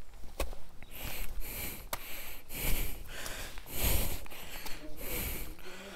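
A person breathing hard and close, about one breath a second, out of breath from walking uphill on a short trek.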